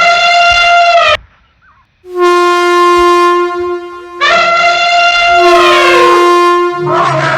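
Elephant trumpeting and a train's horn in three loud, long blasts of about one to two and a half seconds each. The last blast slides down in pitch. A short rumbling noise follows near the end.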